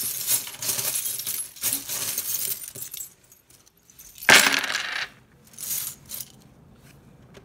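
A handful of small charms (metal pendants, dice, a coin and other trinkets) rattling as they are shaken together. About four seconds in they are cast onto a wooden tray with a loud clatter, and a few smaller clatters follow as they settle.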